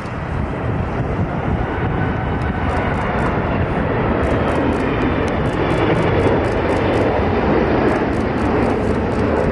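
Boeing 777 twin turbofan jet engines on final approach, gear down: a steady jet rumble that grows gradually louder as the airliner nears.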